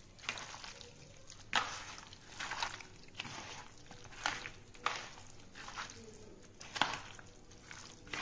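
Raw chicken pieces being mixed by hand into a yogurt-and-spice marinade in a plastic bowl: irregular wet squishes and slaps, about one every second.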